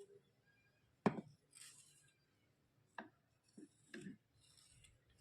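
Thick white slate pencils being scraped and snapping: four sharp cracks, the first about a second in and the loudest, with short gritty scrapes between them.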